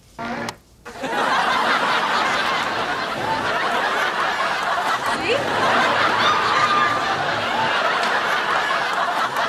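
Studio audience laughing, a large crowd's laughter swelling up about a second in and carrying on steadily for several seconds.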